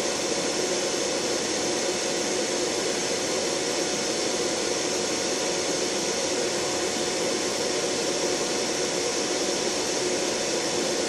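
Large fan on a homemade soldering station running steadily, a loud, even rushing noise with a thin steady tone running through it.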